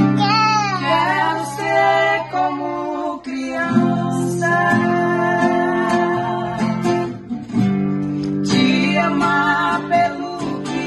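Female singing of a Portuguese worship song, accompanied by a strummed acoustic guitar.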